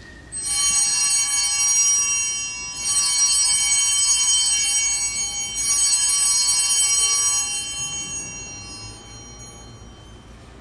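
Altar bells rung three times, about two and a half seconds apart, each ring left to fade away. They are rung at the elevation of the chalice just after the consecration at Mass.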